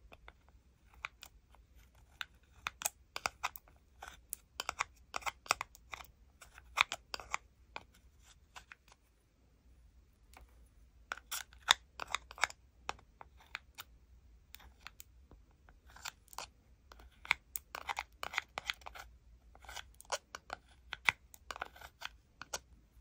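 Metal spatula tool scraping and scooping white cream makeup out of a plastic palette pan: quick runs of sharp, scratchy strokes, pausing briefly about nine seconds in and again around fourteen seconds.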